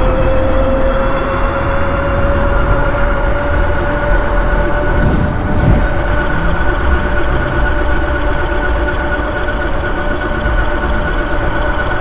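Dual-motor e-bike riding fast: a steady whine from the drive that rises slowly in pitch as it gains speed, over heavy wind rumble on the handlebar-mounted camera's microphone.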